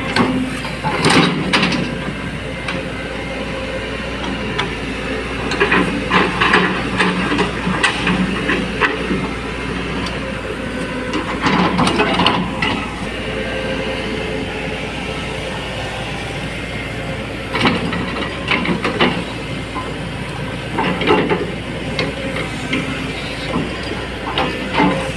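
Cat 320D hydraulic excavator running steadily, with clusters of metallic clanks and knocks every few seconds.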